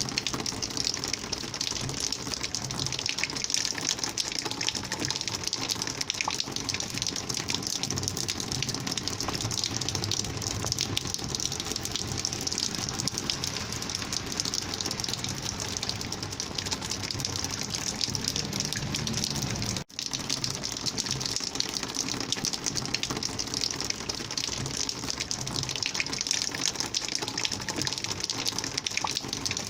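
Rainwater flowing in a steady gushing rush, with no change in its flow except one instant where the sound drops out and comes straight back, about two-thirds of the way through.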